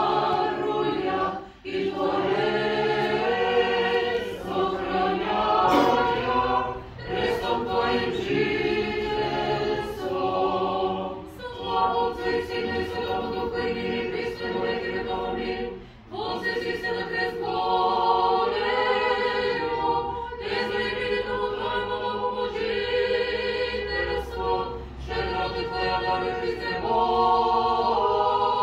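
Orthodox liturgical chant sung a cappella by several voices in harmony, in long held phrases broken by brief pauses.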